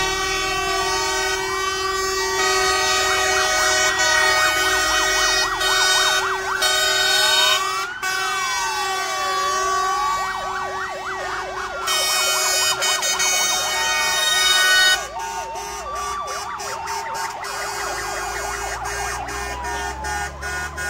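Several fire engine sirens sounding at once as a column of fire trucks drives past, mixing slow rising-and-falling wails with fast yelping warbles over a steady low tone. The sirens get somewhat quieter about 15 seconds in.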